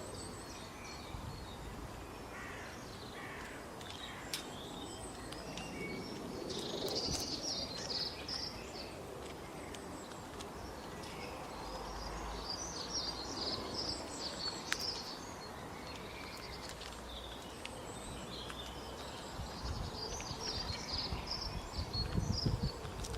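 Small birds chirping and calling in clusters of short, high notes, over a steady outdoor background noise.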